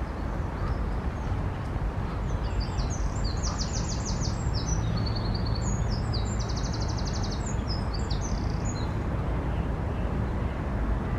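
European robin singing: a run of high, varied twittering phrases with fast trills, starting about two seconds in and stopping about two seconds before the end, over a steady low rumble.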